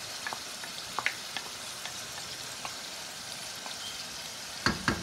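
Chicken pieces sizzling in hot oil in a steel pot, a steady frying hiss with scattered small pops and crackles. Near the end come a few louder knocks of a wooden spoon against the bowl and pot as ginger-garlic paste is scraped in.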